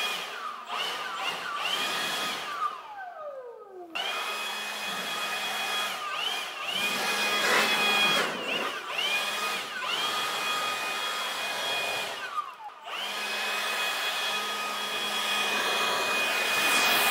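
Leaf blower blowing dust off walls: a steady motor whine over rushing air. About three seconds in and again about twelve seconds in, the motor winds down with a falling pitch and drops off, then spins straight back up, with short dips in speed in between.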